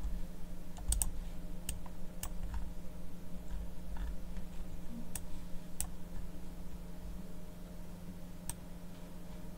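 Sharp clicks from a computer mouse, spaced irregularly a second or so apart, as the map is zoomed in, over a steady low electrical hum.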